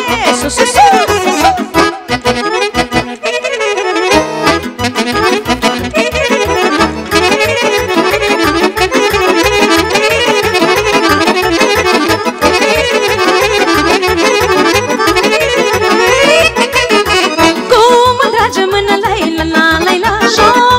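Live Romanian folk party band playing an instrumental dance passage led by accordion over a steady, fast beat. The beat drops out briefly about two seconds in, then comes back.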